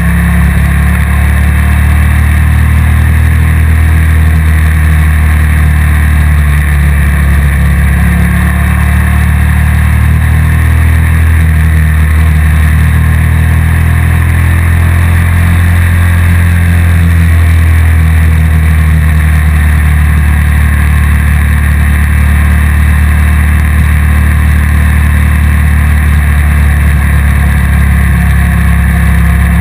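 Motorcycle running at road speed, heard through a vehicle-mounted camera as a loud, steady low rumble, with small rises and falls in engine pitch.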